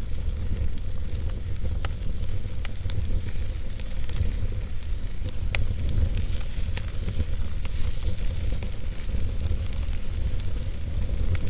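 Wood fire burning in a fireplace: irregular sharp pops and crackles over a steady low rumble.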